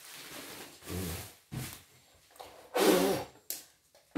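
A person's short wordless vocal sounds, a brief hum or grunt about a second in and a louder one around three seconds, over rustling as stiff stabiliser fabric is handled, with a sharp click near the end.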